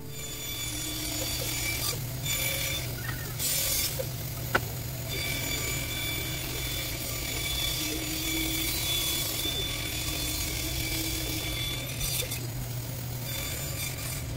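Band saw running and cutting a wooden axe-handle blank: a steady motor hum with a high blade whine and hiss. The whine drops out briefly a couple of times, and a single sharp click comes a little after four seconds in.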